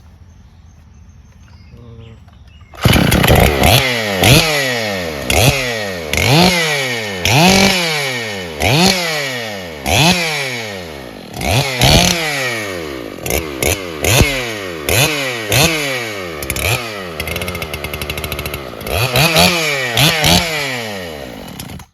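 Freshly rebuilt Makita DSC-6421 two-stroke chainsaw, fitted with a 79cc big-bore Dolmar PS-7900 top end, starts about three seconds in and is revved in quick blips about once a second, each rising sharply and falling back, then cuts off suddenly near the end.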